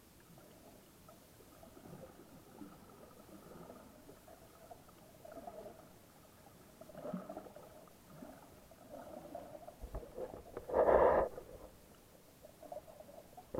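Muffled underwater sound picked up by a submerged camera: faint, wavering gurgling, with a louder short rush of noise about eleven seconds in.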